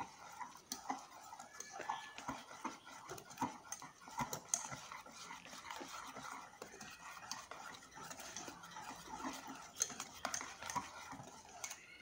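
A spoon beating thick flour-and-spice batter in a bowl by hand, with irregular wet slaps and light clicks of the spoon against the bowl.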